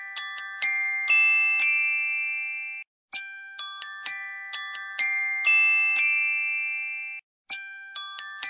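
Background music of bright, bell-like struck notes: a quick run of ringing notes that settles onto a long, slowly fading chord, the phrase repeating about every four seconds, with a brief silence between repeats about three and seven seconds in.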